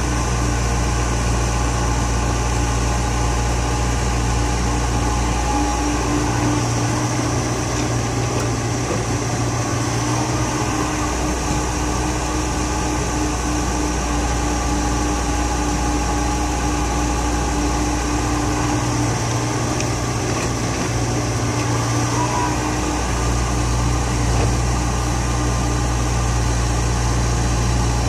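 Komatsu hydraulic excavator's diesel engine running steadily while it digs and loads earth into a dump truck, with a constant low hum and a steady tone above it. The deepest part of the engine note drops back twice as the load on the machine changes.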